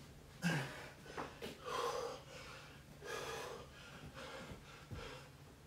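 Heavy breathing of a man exerting himself through inchworm push-ups: four or five short, sharp exhales and gasps about a second apart, the first the loudest.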